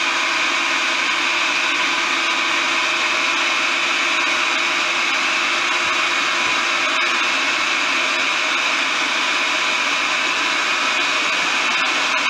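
Electric food processor running steadily, its blade chopping cooked chicken breast, with a loud, even whine.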